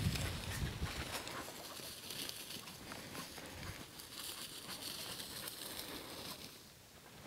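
Footsteps and the swish of legs brushing through dry prairie grass, soft and uneven, with a brief brighter rustle about two-thirds of the way through.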